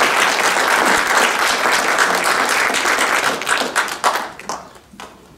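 Audience applauding, a dense spread of many hands clapping that dies away about four to five seconds in.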